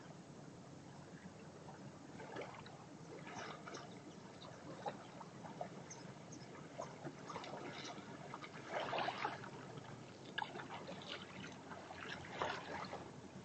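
Shallow seawater splashing as a person wades out toward the shore, short irregular splashes from each step that grow louder as he comes closer.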